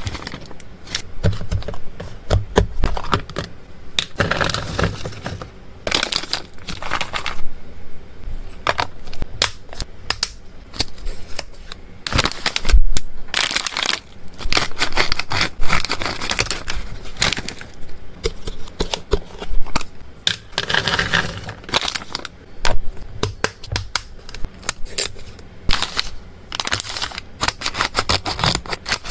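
Stiff plastic and foil pet-treat bags crinkling and rustling as they are handled and opened, with sharp clicks and taps throughout. Near the end, scissors snip through the top of a bag.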